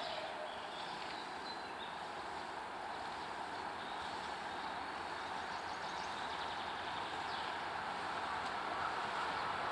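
Passenger train hauled by a ChS8 electric locomotive approaching, a steady running noise growing slowly louder.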